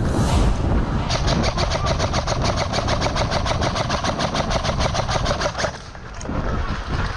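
Airsoft rifle firing a long full-auto burst, a rapid even rattle of about eight shots a second that starts about a second in and stops short almost five seconds later.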